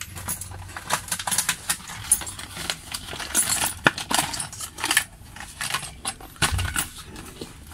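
Cardboard and plastic packaging of a charging socket being opened and handled: irregular rustling and scraping with small clicks and clinks, the sharpest click a little under four seconds in.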